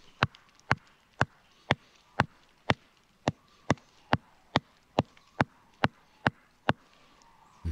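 Wooden stake being driven into forest ground: about fifteen sharp, evenly spaced knocks, roughly two a second, stopping near the end.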